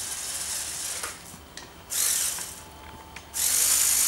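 Lepin M motor (a Lego Power Functions copy) running a crane winch through plastic gears with a high gear whir, lifting a weighted bucket. It stops about a second in, runs in a short burst about two seconds in, and starts again at about three and a half seconds.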